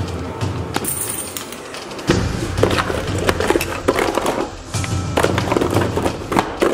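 Background music with a heavy bass beat that drops out for about a second near the start and then comes back. Under it, the clatter and rustle of boxes and small items being moved around by hand.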